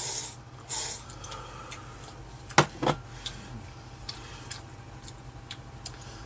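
Jjapaghetti noodles slurped twice in the first second, then two sharp clinks of chopsticks against a bowl about two and a half seconds in, followed by scattered small clicks of eating.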